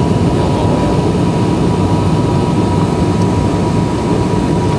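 Steady loud drone of a turboprop airliner's engines and propellers heard inside the cabin, with a thin steady high tone running over it, as the plane descends on approach to land.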